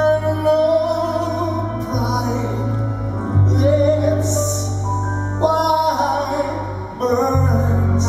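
Male vocal group singing a slow ballad in harmony over live orchestral accompaniment with violin, with deep held bass notes that change every couple of seconds.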